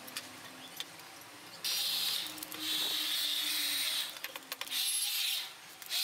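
Repaired hand-held hair dryer switched on and blowing air, cutting in abruptly about a second and a half in, then stopping and restarting several times in short bursts. It is running again after its blown thermal fuse and failed blower diodes were replaced.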